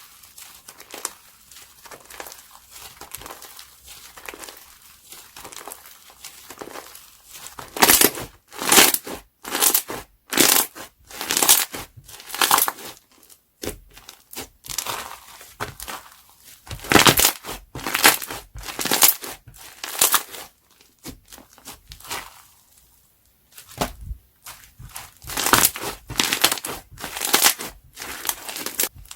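Crunchy slime being squeezed and pressed by hand, crackling and popping. It starts soft, then comes in loud, crisp crunches about once or twice a second, with a short pause before the crunching resumes near the end.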